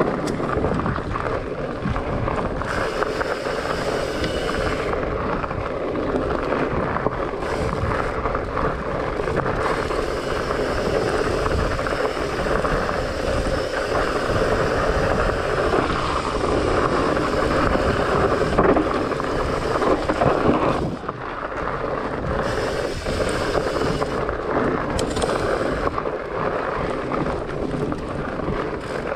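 Fatbike riding along a dirt and gravel forest trail: a steady rush of the wide tyres rolling on the trail, mixed with wind buffeting the handlebar-mounted microphone.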